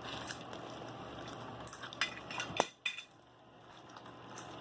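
Bowl and utensils clinking over faint handling noise, with a few sharp clicks about two seconds in. The sound then drops off abruptly to near silence.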